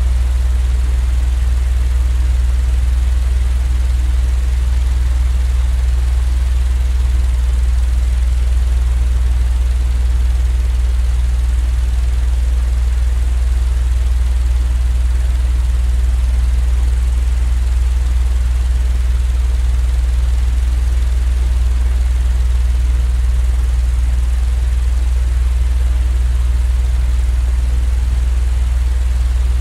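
Continuous low machine drone, a deep steady hum with a faint even hiss above it, unchanging in pitch and level: a sleep-aid noise track.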